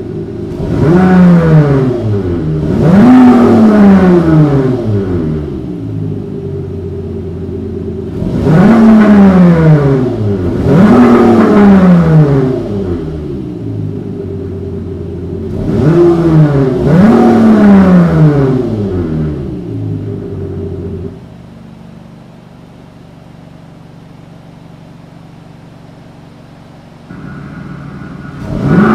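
Cupra Ateca's 2.0 TSI four-cylinder engine free-revving at standstill through an exhaust with a retrofitted Active Sound generator: six quick revs in three pairs, each rising and falling back to idle. About two-thirds of the way through the sound drops to a much quieter idle, and another rev begins near the end.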